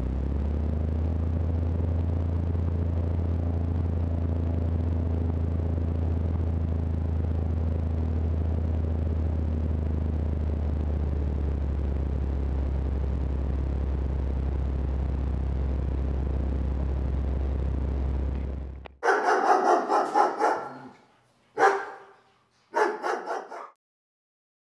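Steady, loud drone of a light plane's engine heard from inside the cabin. It cuts off about 19 seconds in and is followed by a dog barking in three short bursts.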